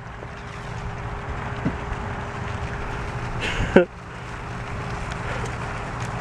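Steady low outdoor rumble with a faint steady hum, broken once about three and a half seconds in by a short voiced exclamation.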